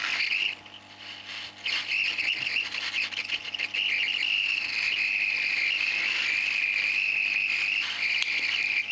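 Hot air rework gun blowing a steady, high hissing whistle onto a phone circuit board to melt the solder holding the SIM card reader. The airflow drops out briefly about a second in, then runs steadily and cuts off suddenly.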